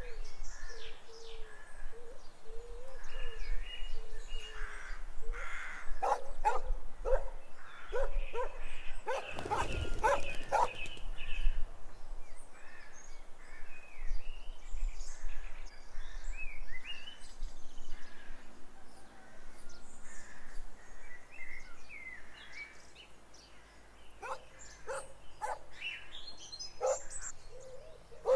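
Birds chirping over outdoor street ambience, with many short calls throughout. The chirping is busiest and loudest between about six and eleven seconds in, with a brief burst of wider noise around ten seconds.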